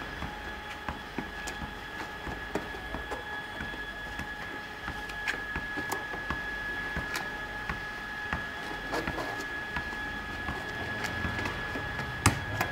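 A football being headed over and over, light repeated knocks of the ball on a man's head, with a louder knock near the end. A steady high whine runs underneath.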